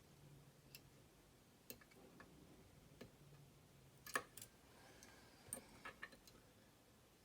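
Faint, irregular metallic clicks of a lock pick tapping the pin stacks of a steering-wheel lock cylinder held under heavy tension, with a louder cluster of clicks about four seconds in. The pins feel tapered and need repeated taps to set.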